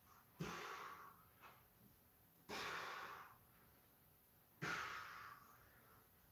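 A man's forceful breaths out through the mouth during push-ups: three sharp exhales about two seconds apart, one on each push back up. Each starts suddenly and trails off.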